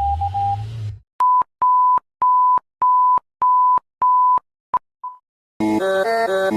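Emergency-alert beep tones: about six short beeps at one steady high pitch, roughly a half-second apart, ending with a couple of clipped blips. Before them a stuttering steady tone over a low rumble cuts off about a second in, and near the end electronic music with a repeating synth melody starts abruptly.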